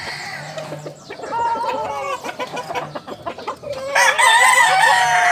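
Gamefowl chickens clucking, with a rooster's long, loud crow beginning about four seconds in.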